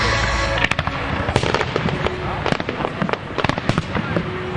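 Aerial fireworks bursting in quick, uneven succession: a rapid series of sharp bangs and crackles that begins under a second in.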